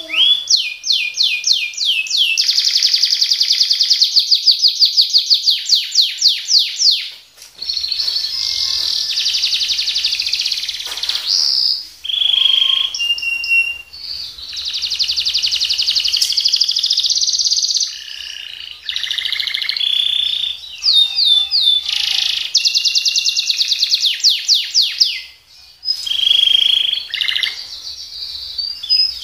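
Domestic canary singing: long phrases of fast trilled rolls and sharp, rapidly repeated high notes, broken by a few short pauses.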